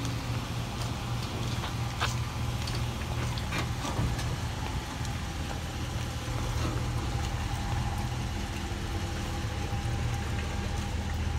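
An engine idling steadily, with a few short clicks or knocks over it.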